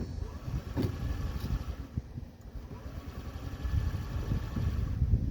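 2005 Honda Metropolitan moped's 49 cc four-stroke engine being cranked on its electric starter from cold, a fast uneven low chugging, a little quieter about two seconds in. It is hard starting and does not catch.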